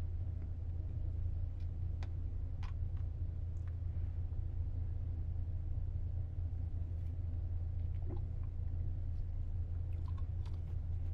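Steady low drone of a ferry underway, its engines carried through the hull into a small cabin washroom. A few faint clicks and rustles come from a packaged disposable toothbrush being handled.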